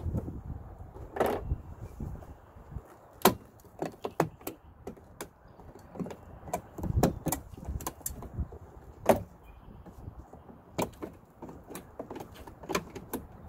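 Plastic trim retaining clips clicking and snapping as trim clip pliers pry a vehicle's rear sill trim panel loose: an irregular run of sharp clicks, the loudest about three and nine seconds in.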